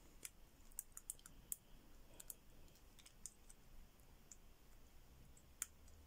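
Faint, irregular clicking of a combination lock's number wheels turned by hand through their detents, as the combination is decoded by feeling each wheel for stiffness.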